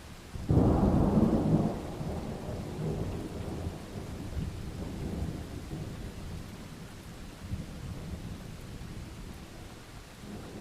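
A thunderclap that breaks suddenly about half a second in, loudest for about a second, then rumbles on and slowly dies away, over steady rain.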